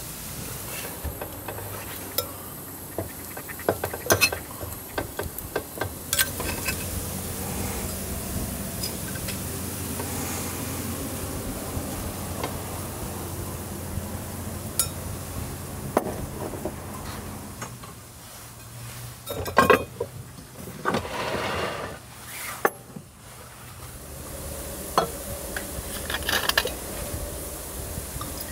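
Metal cookware and utensils clinking and knocking over and over, over the steady sound of a lit portable gas stove. The loudest clinks come about four seconds in and again around twenty seconds in.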